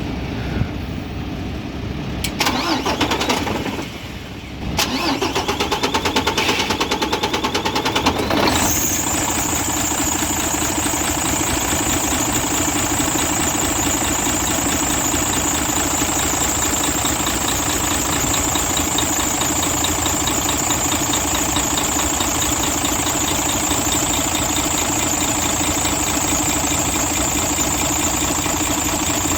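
Mercedes Actros MP2 truck's diesel engine cranking on the starter for several seconds, with a short pause, before catching about eight seconds in and settling into a steady idle with a high whine over it. The long crank is the hard-starting fault being diagnosed.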